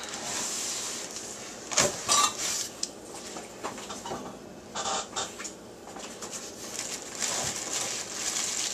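Plastic-wrapped T-fal nonstick pots with glass lids being handled in a cardboard box: plastic film crinkling and cardboard rustling, with a few sharp knocks and clinks, the loudest about two seconds in and more around five seconds.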